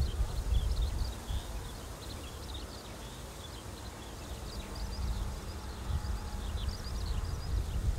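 Wind buffeting the microphone in an irregular low rumble, with small birds chirping in many short calls throughout.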